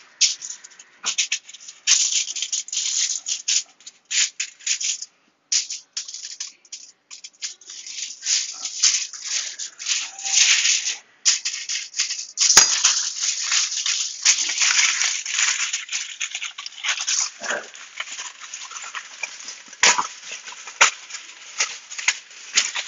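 Aluminium foil crinkling and tearing as it is cut with a knife and shaped into a ring. The crackling goes on irregularly, with two short pauses.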